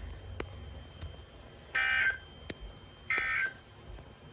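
Emergency Alert System digital header tones: short, harsh, buzzy data bursts, the End-of-Message code that closes a warning broadcast. Two bursts come about a second and a half apart, with a third starting at the very end, and a few sharp clicks in between.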